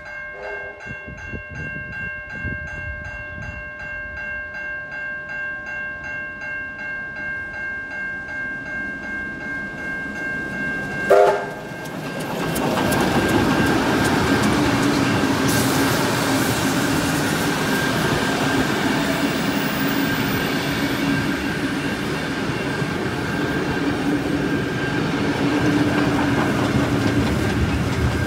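Level crossing bells ringing at a steady rapid beat. About 11 seconds in a K-class steam locomotive gives one short whistle blast, the loudest sound here. It is followed by the steam train running over the crossing with wheels clattering on the rails while the bells keep ringing.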